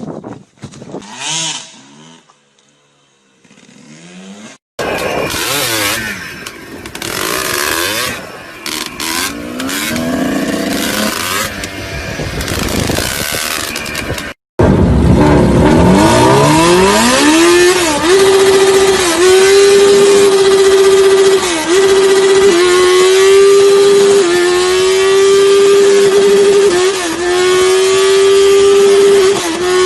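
Motorcycle engines revving across several short clips. In the second half one engine climbs to a steady high-pitched whine held at high revs, dipping briefly every second or two.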